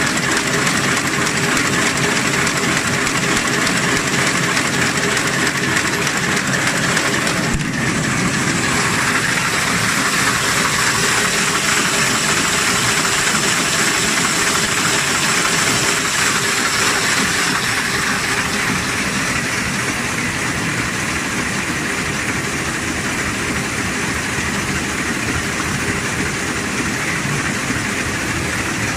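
Automatic paper bag making machine running at speed: a steady, dense mechanical clatter with hiss and a few steady tones. The highest sounds drop off a little over halfway through.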